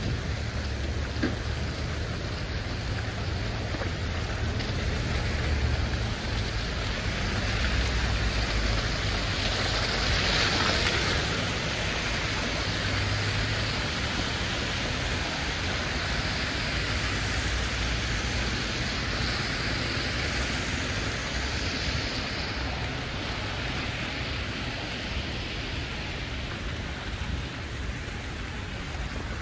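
Steady outdoor street noise in wet snow: a rain-like hiss of traffic and tyres on the wet road over a low rumble, swelling briefly about ten seconds in.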